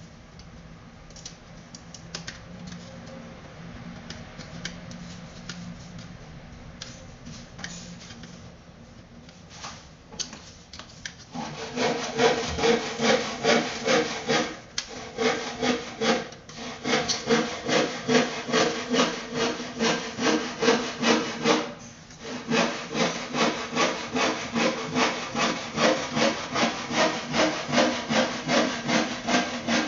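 Light handling clicks at first, then, about eleven seconds in, a steady run of back-and-forth rasping strokes like hand sawing, about two and a half a second, broken by two short pauses.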